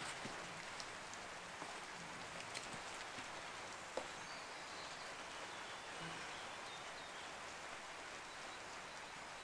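Steady hiss of light rain, with a few faint clicks, one about four seconds in.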